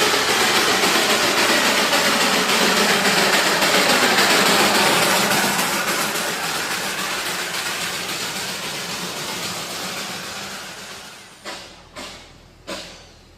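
Darjeeling Himalayan Railway toy train running with a loud, dense rattle and rumble that fades steadily over the second half, as if moving away. Near the end a few sharp thumps begin.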